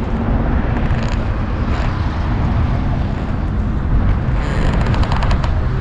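Steady low rumble of outdoor background noise, with a brief run of faint clicks about four and a half seconds in.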